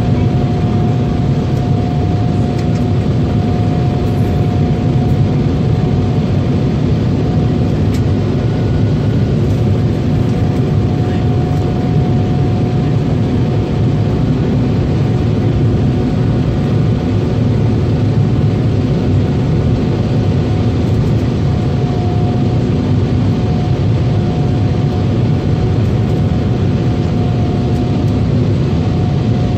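Jet airliner's engines and airflow heard inside the cabin on final approach, a steady low roar with a constant hum riding on it.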